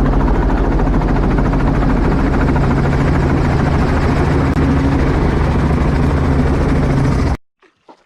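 Helicopter running loud and steady, with a constant low hum of engine and rotor; it cuts off suddenly near the end.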